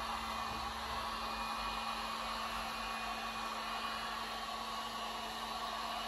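Handheld electric heat gun running steadily, an even blowing noise over a constant low motor hum, as it warms vinyl wrap film to soften it for laying down.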